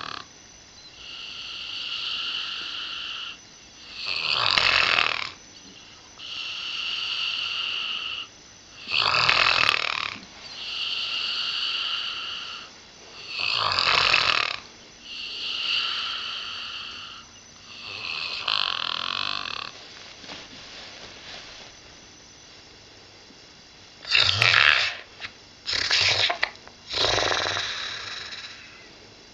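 Springer spaniel snoring, from a dog with a nasal tumour. Each breath goes from a high, steady whistle to a loud snore, about every five seconds. After a quieter stretch past the middle, three snores come close together near the end.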